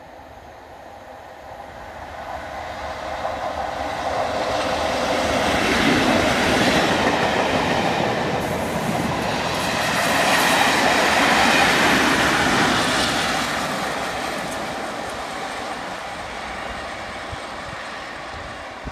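Two Class 37 diesel locomotives, each with an English Electric V12 engine, pass at speed with yellow test coaches between them. The sound swells as the leading locomotive goes by about six seconds in, the coaches' wheels run on the rails, and it swells again with the rear locomotive about eleven seconds in before fading.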